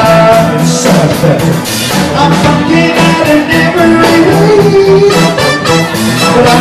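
Live band playing loud amplified music, with a drum kit keeping a steady beat under keyboard and other instruments.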